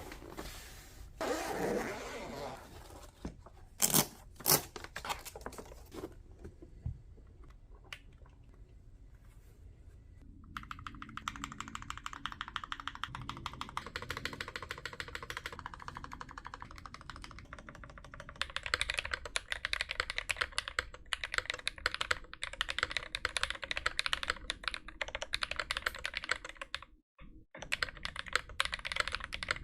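Custom-built mechanical keyboard being typed on fast: a dense stream of key clicks and clacks, growing louder about eighteen seconds in and broken by a brief gap near the end. The first ten seconds hold only a swell of noise and a few sharp knocks, two of them loud about four seconds in.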